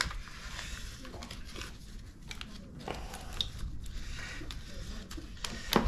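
Scattered small clicks, rustles and light knocks of gloved hands working hoses and fittings around the carburetor of a Suzuki RM65 dirt bike, with one sharp click near the end; the engine is not running.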